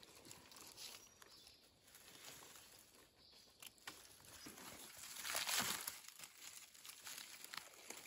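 Dry leaf litter rustling and crackling as gloved hands dig around a wild mushroom and cut it free with a knife, with a louder burst of rustling about five seconds in.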